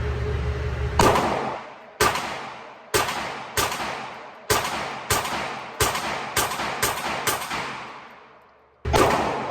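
Pistol fired in a string of about eleven shots, spaced roughly half a second to a second apart, each shot ringing out in a long echoing tail; a Glock-pattern pistol being test-fired with an upgraded Ghost Inc trigger connector.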